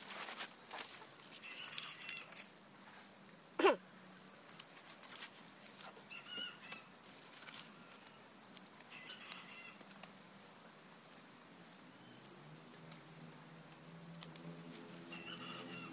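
Scattered clicks and rustles of bonsai wire and branches being handled as a tree is wired, with a few short bird chirps. About three and a half seconds in comes one sharp falling squeal, the loudest sound. A low steady hum comes in near the end.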